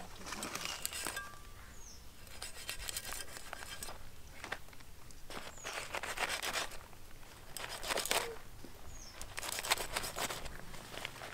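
A large steel knife scraping along the skin of a big seer fish in long strokes, about one every two seconds.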